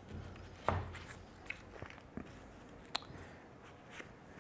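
Faint, scattered wooden clicks and creaks as a freshly steam-bent wooden rib is worked down into a skin-on-frame canoe's frame. There are about half a dozen sharp ticks, the loudest about two-thirds of a second in and again about three seconds in.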